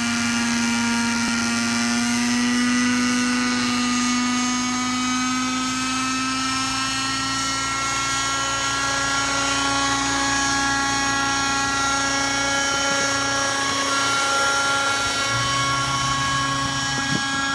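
Thunder Tiger Raptor 60 RC helicopter's engine and rotors running steadily in a hover, a high buzzing whine whose pitch creeps slightly upward over the first several seconds and then holds.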